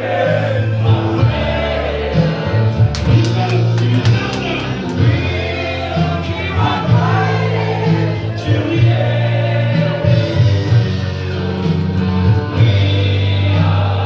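A song with a heavy bass line playing loudly, with a room full of people singing along to it.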